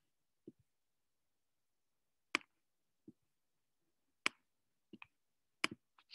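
Faint computer clicks turning the page in an e-book reader: a quiet start, then three sharp clicks spread over the last four seconds, with softer taps between.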